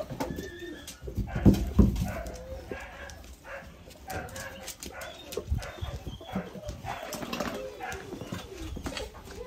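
German Shorthaired Pointer puppies whining and making short cooing grunts, with sharp little clicks. A couple of dull thumps land about one and a half to two seconds in.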